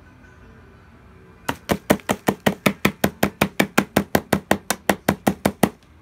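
Plastic dustbin of a Robit V7S Pro robot vacuum being knocked out to empty the dust and hair: a rapid, even run of sharp knocks, about five a second, starting about a second and a half in and stopping shortly before the end.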